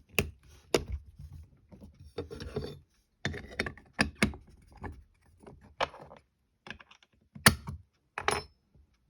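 Metal parts of an old Milner's safe lock being handled and worked: irregular sharp clicks and short clatters of the mechanism, the loudest a sharp click near the end.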